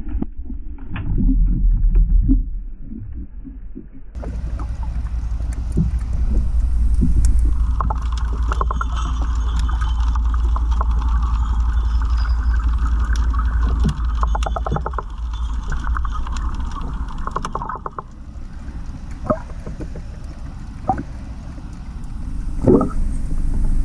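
Underwater sound picked up by a submerged GoPro: a low, steady water rumble with scattered knocks, muffled for the first few seconds and then fuller. A steady buzzing hum runs through the middle for about ten seconds, and a few sharp knocks come near the end.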